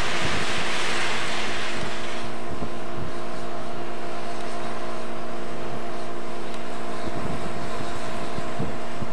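Engine of a yellow railway maintenance-of-way machine running steadily as it travels along the track, with scattered low knocks and a hiss that fades about two seconds in.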